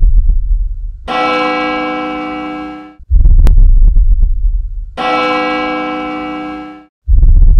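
Intro sound effects: deep rumbling hits alternate about every two seconds with a ringing, bell-like chord that fades away. There is a sharp click about three and a half seconds in.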